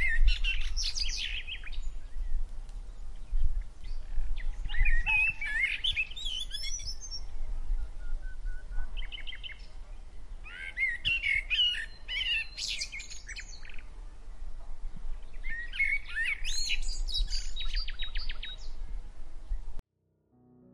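Songbirds singing: several phrases of quick warbling and trilled song, repeated every few seconds over a steady low rumble. The sound cuts off suddenly near the end.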